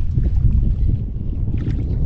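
Wind buffeting the microphone in a steady low rumble, with small waves lapping against a kayak's hull.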